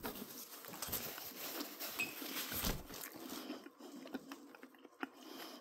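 Faint, irregular chewing and mouth sounds of a person eating a first bite of a soft pizza snack made of crescent-roll dough, cheese and pepperoni.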